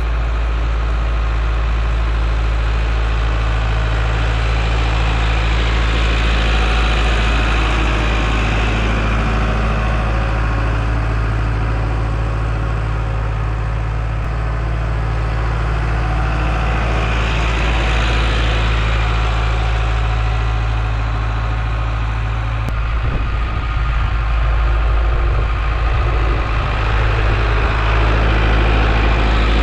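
International Harvester tractor engine running steadily, growing louder and rougher in the last few seconds as the tractor drives its loader bucket into the snow close by.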